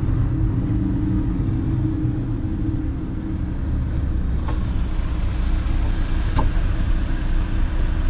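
Volvo FM 340 truck's diesel engine running low and steady, heard from inside the cab while the truck creeps along in slow traffic.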